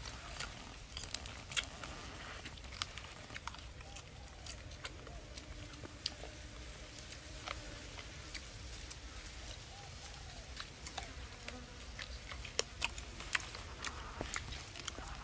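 Roasted whole chicken being torn apart by hand and chewed: irregular crisp clicks and crackles of skin and meat tearing and crunching, with a faint insect buzz underneath.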